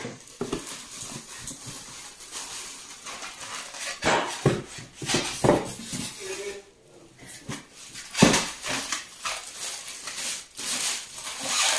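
Plastic wrap crinkling and cardboard rustling and scraping as a boxed electric teppanyaki grill is handled and pulled out of its packaging, with a few knocks of the grill against the box and table, the loudest about eight seconds in.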